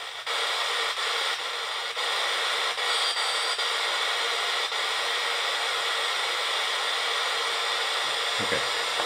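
An FM radio module's speaker giving a steady hiss of static between stations as it is tuned up through about 76 to 77 MHz, cutting out briefly several times in the first few seconds.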